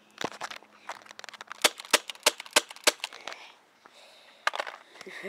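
Airsoft gun firing a rapid string of sharp shots, the loudest five about a third of a second apart, with a few more shots near the end.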